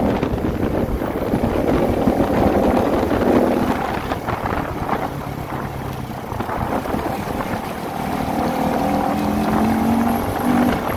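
CFMOTO 300SR motorcycle's single-cylinder engine running under way, its pitch rising and falling as the revs change, with wind buffeting the microphone.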